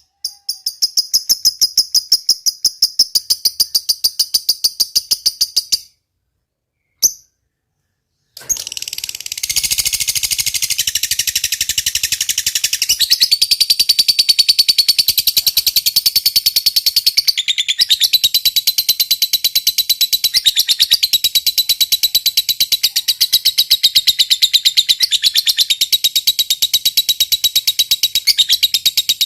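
Lovebird giving its long, rapid chattering trill ('ngekek panjang'), a fast run of high, evenly repeated notes. One trill of about six seconds, a break of about two seconds, then one unbroken trill lasting some twenty seconds.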